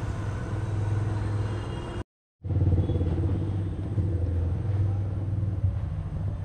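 A steady, loud low rumble with a droning hum, like a motor running, cut off by a brief silent gap about two seconds in.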